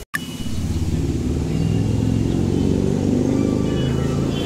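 A motor vehicle's engine running close by, swelling to its loudest about three seconds in and then easing off as the vehicle passes.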